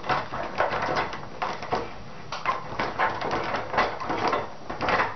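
Irregular clicks, taps and scraping from handling a fluorescent tube in a metal ceiling fixture, as the tube is rotated and its pins are worked out of the lampholder.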